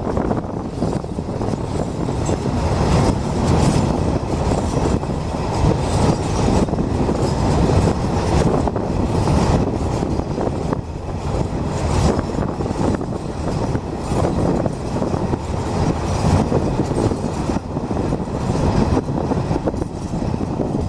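Freight train of Eas open wagons rolling past with a steady rumble of wheels on rail and irregular clacks over rail joints and points.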